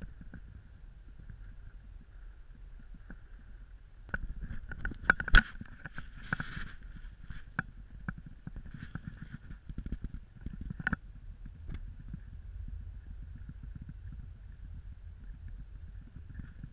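Toyota Corolla driving on a snow-covered road, heard from inside the cabin: a steady low rumble of tyres and engine with a faint high whine. A run of sharp knocks and rattles comes between about four and eleven seconds in, the loudest a little after five seconds.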